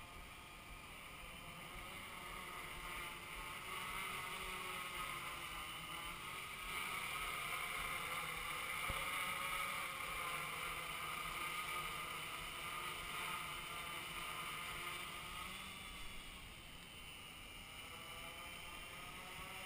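Hexacopter's six brushless motors spinning 9x4.7 propellers in hovering flight, a steady buzzing whine whose pitch wavers with the throttle corrections, louder in the middle as the craft comes close.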